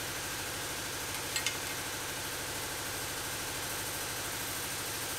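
A steady mechanical hum, like a motor running, at an even level throughout, with two light clicks about a second and a half in.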